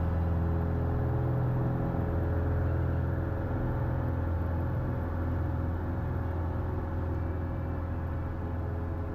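Cessna 172H's six-cylinder Continental O-300 piston engine and propeller running at takeoff power, a steady drone heard inside the cockpit during the takeoff and initial climb.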